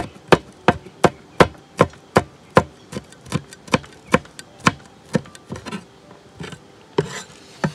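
Steel cleaver chopping green chillies on a plastic cutting board: sharp, even knocks about two and a half a second, slowing to a few irregular strokes after about five seconds.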